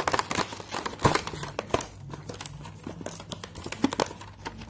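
Plastic packaging crinkling and rustling while a cardboard product box is handled and turned over, with scattered small clicks and taps, busiest in the first couple of seconds and sparser after.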